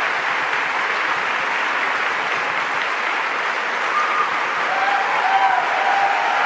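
Large audience applauding steadily, a dense, even sound of many hands clapping.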